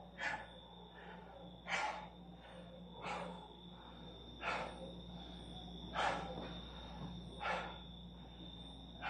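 A man breathing hard, with a short heavy breath about every second and a half: winded after a set of Navy SEAL burpees.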